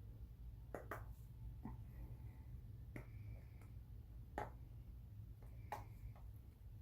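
Fingernails picking at the warning label on a snus can: faint, irregular clicks, about half a dozen of them.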